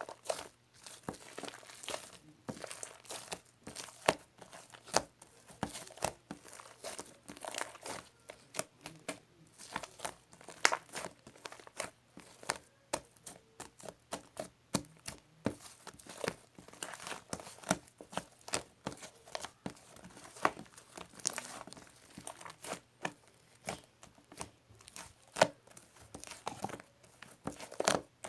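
Crinkly material being handled close up: dense, irregular crinkling and crackling with frequent sharp clicks.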